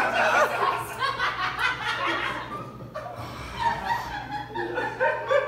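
Audience laughing, loudest in the first second or two and then carrying on more loosely.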